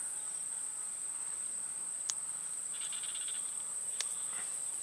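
Insects trilling steadily at a high pitch in swampy grassland. Two faint clicks come about two and four seconds in.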